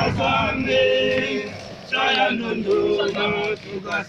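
Men's voices singing a marching chant together, in phrases with long held notes.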